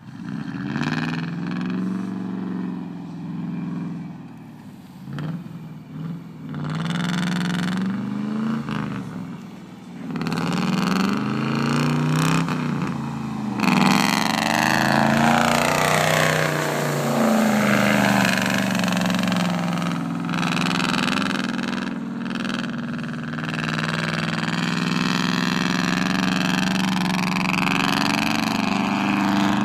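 Land Rover Defender 130's V8 engine revving again and again as the truck is driven through mud, its pitch rising and falling with each burst of throttle. It grows louder about halfway through as the truck comes toward the camera.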